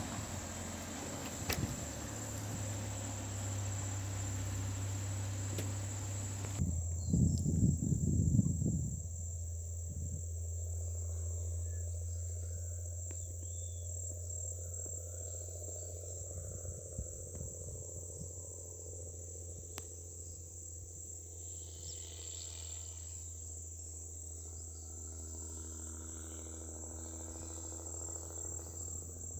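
Steady high-pitched insect chorus in open pasture, over a low steady hum, with a brief burst of low rumbling about seven seconds in.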